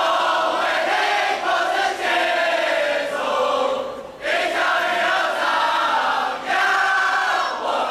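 A large group of voices singing together in unison, in long held phrases with short breaks about four seconds in and near the end.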